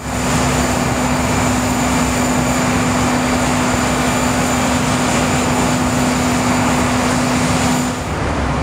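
Diesel-electric freight locomotive running, a loud steady drone with a steady low hum through it. About eight seconds in the hum drops out, leaving a steady rushing noise.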